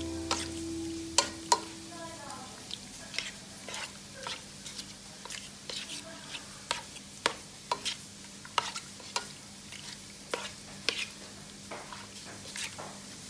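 Plastic spoon stirring chunks of pork liver and pork belly in a nonstick pot: irregular clicks and scrapes of the spoon against the pot, about one or two a second, over a faint sizzle from the pan.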